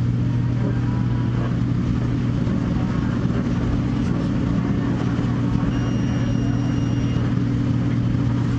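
Steady drone of pizza restaurant machinery, a loud low hum under a constant hiss. A faint high tone sounds briefly about six seconds in.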